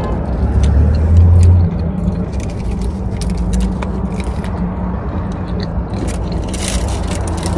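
Close-up eating sounds: chewing and small crunches and clicks of a bagel being eaten, over a steady low rumble that swells deeper for about a second near the start.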